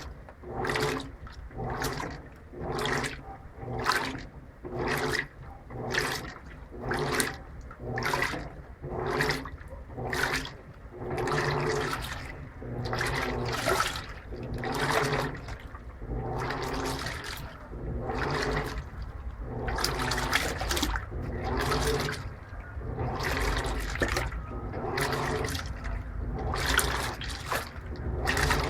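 Electrolux LTP15 top-load washing machine agitating a load of clothes in its Normal program, without turbo agitation: water and laundry slosh in rhythmic surges about once a second as the agitator reverses, over a steady low motor hum, the surges running together into steadier churning about halfway through.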